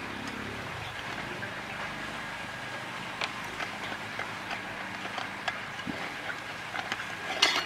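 Handling a camping cook kit in a mesh drawstring bag: faint rustling with scattered small ticks as the bag is opened and peeled off the nested pots. A short cluster of light metal clicks comes near the end as the pot lid is handled.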